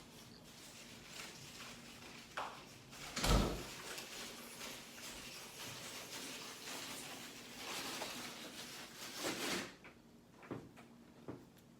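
Rustling and handling noises while eating, with one heavy thump about three seconds in. The rustling stops near the end, leaving a couple of light clicks.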